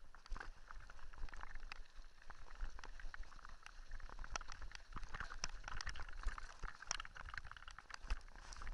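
Mountain bike rolling downhill on a loose gravel dirt track: tyres crunching over stones, with frequent irregular clicks and rattles over a steady low rumble.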